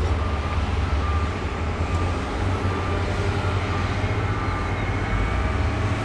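Diesel engines of a wheel loader and a tipping dump truck running, a steady low rumble, with a faint high whine over it.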